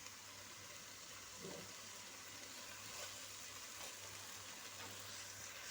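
Faint, steady sizzling of chicken frying with curry powder and spices in a pot, over a low steady hum.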